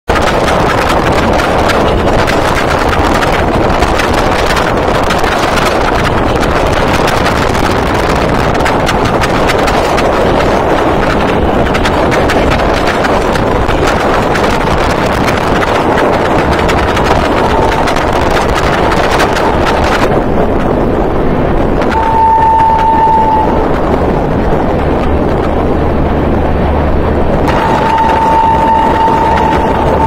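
Rushing wind and running noise of the Gatiman Express at speed, heard from a coach window with wind on the microphone. Its shrill electric-locomotive horn (a WAP-5) sounds briefly about two-thirds of the way through, then again for a longer blast near the end.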